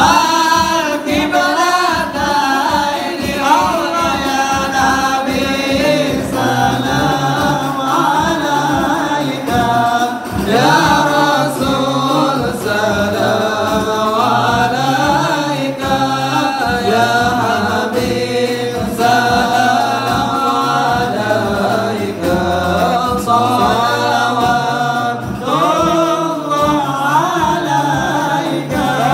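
A large group of men singing a song together in unison, with no break.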